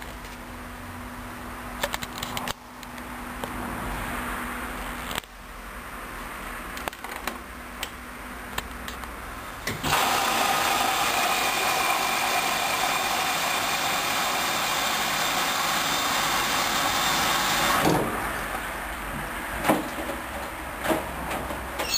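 Hoover Dynamic Wash washing machine running at the start of its cycle: a steady low hum at first, then a loud steady rushing sound that starts and stops abruptly and lasts about eight seconds, followed by a few clicks.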